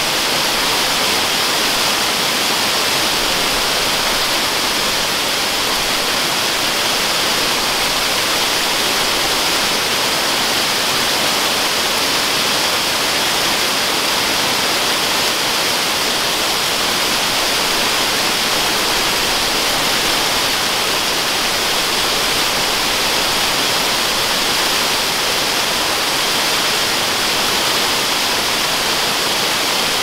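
Waterfall: a steady, loud rush of water pouring down over rocks, unchanging throughout.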